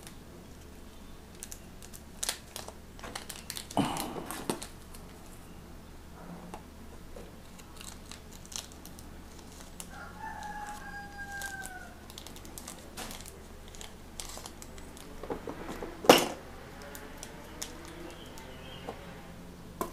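Scattered clicks and knocks from handling PVC pipes and scent samples, one sharp knock near the end the loudest. About ten seconds in, a rooster crows once, faintly, a call of nearly two seconds gliding slightly down.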